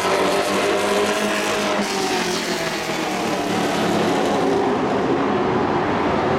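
Engines of dirt-track race trucks running on the oval, several at once, their pitch drifting up and down as they go around.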